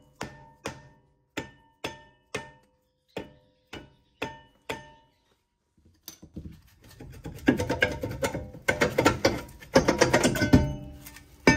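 Rusted-on rear brake rotor of a 2018 Jeep Grand Cherokee struck repeatedly, about two blows a second, each leaving the rotor ringing briefly, to break it free of the hub. After a short pause the loosened rotor is rocked and pulled off the hub with loud metallic scraping and clanking.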